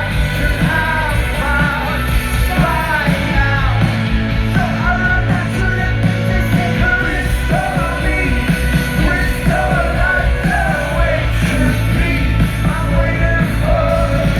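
Live rock band playing, with singing over a steady full band of drums, bass and guitars.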